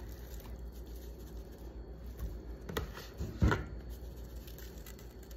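Seasoning being shaken from a spice shaker bottle onto pork steaks in a plastic container: faint scattered ticks and rubs of handling, with a couple of sharp knocks near the middle, the louder about three and a half seconds in.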